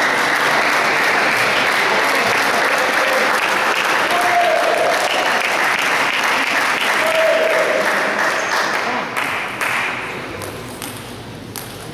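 Hall audience applauding a won point in a table tennis match, with a few voices calling out; the applause dies away near the end.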